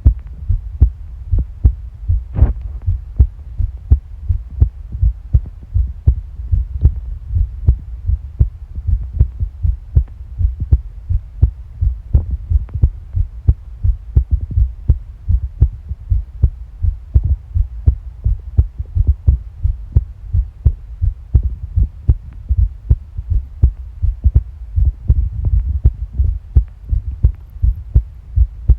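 Human heartbeat picked up close against the body: a steady, even rhythm of low thumps. There is one sharper, brighter noise about two seconds in.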